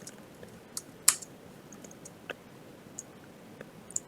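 Computer keyboard keystrokes: a few separate, irregular key clicks, the loudest about a second in.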